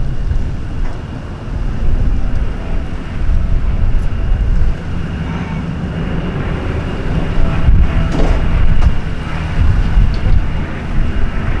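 Low aircraft engine rumble rising and falling in level, mixed with wind buffeting the microphone.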